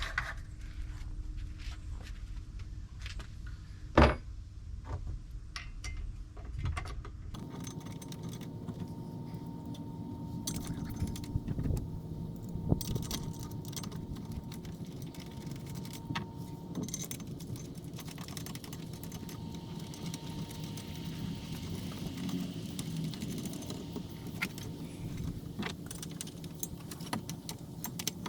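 Metal hardware clinking and clicking as the steel parts of an umbrella base are handled and bolted together, with one sharp knock about four seconds in.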